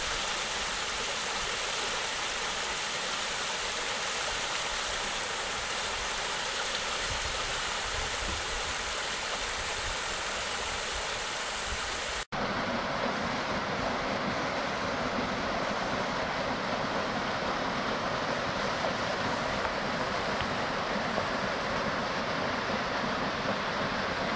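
Small mountain stream rushing and splashing over rocks in a steady wash of water noise. About halfway through it cuts out for an instant and comes back as a heavier, lower rush of water pouring down.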